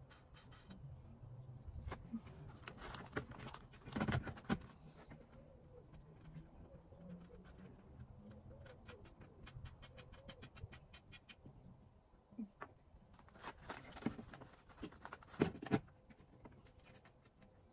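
Hand assembly of a robot lawn mower house: scattered clicks and knocks as its panels and fittings are handled and pushed together, bunched about four seconds in and again near the end.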